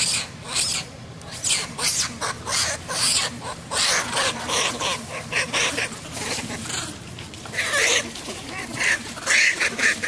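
Young macaques shrieking in a rapid series of short, high-pitched cries, the distress squeals of small babies being chased off by a bigger young monkey.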